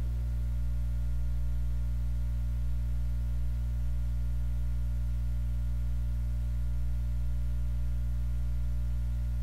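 Steady electrical mains hum, a low buzz with its overtones, over faint hiss. Nothing else is heard.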